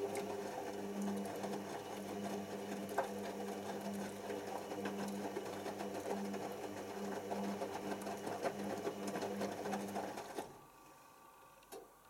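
Hoover Optima OPH714D front-loading washing machine tumbling wet towels in its drum during the rinse: a motor hum that pulses about twice a second, with the laundry sloshing and slapping. The drum motor stops abruptly about ten and a half seconds in, and two sharp clicks follow near the end.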